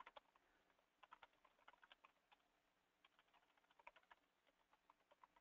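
Faint computer keyboard typing: irregular keystroke clicks as a short command is typed in.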